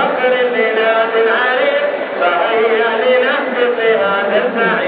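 Stadium crowd of football fans chanting together: a loud, steady mass of many voices on held notes.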